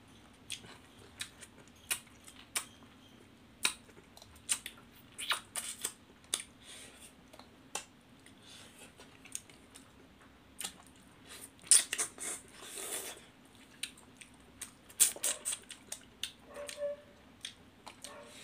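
Close-up eating sounds of two people eating fish curry and rice by hand: wet mouth smacks, lip clicks and chewing, in irregular sharp clicks.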